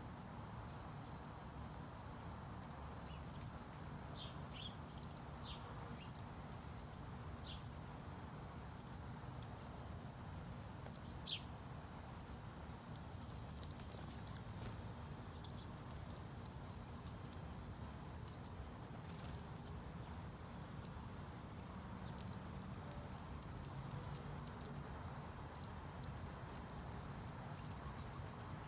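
Insects chirping: a steady high-pitched drone with louder short chirps in quick groups of two to six, about once a second. A few faint bird chirps come in between about four and eleven seconds in.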